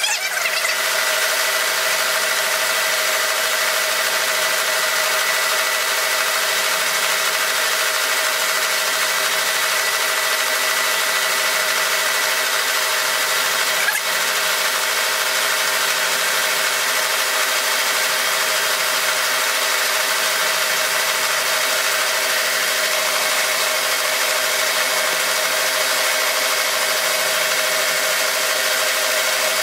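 Milling machine running with a roughing shell mill cutting a steel bar on power feed: a steady machining whir with a constant tone.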